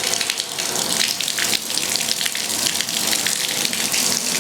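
Water running steadily from a newly installed Pfister Venturi tub-and-shower fixture and splashing into the tub, as the new valve is tested.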